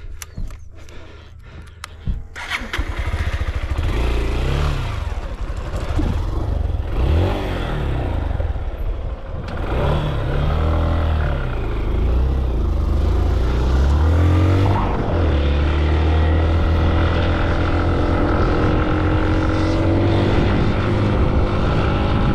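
Motorcycle engine coming in about two seconds in after a few sharp clicks, then revving up and down repeatedly as it is ridden. Later it holds a steadier note that slowly climbs.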